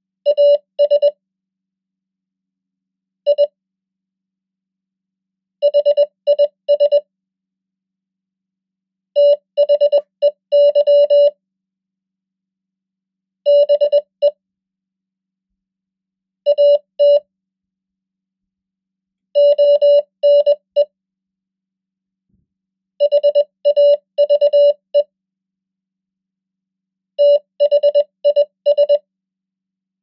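Morse code practice tone, a single steady-pitched beep keyed in dots and dashes at 20 words per minute. It spells out nine words, one short cluster each with about two seconds of silence between: AS, I, HIS, THEY, BE, AT, ONE, HAVE, THIS.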